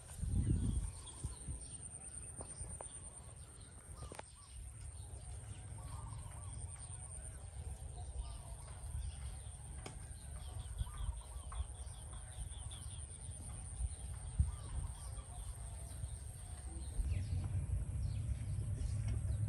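Chickens clucking in the background over a steady low rumble and a steady high-pitched whine.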